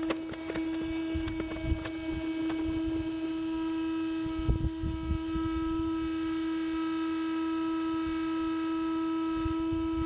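Steady hum of a large honeybee colony clustered in an opened roof eave: one held pitch with overtones, unchanging throughout, with a few low bumps about halfway through.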